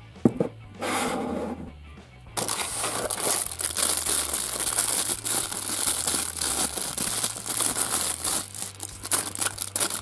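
A ceramic mug knocks once as it is set down on the table, then clear plastic wrapping crinkles and rustles continuously as a packaged figure is handled and unwrapped.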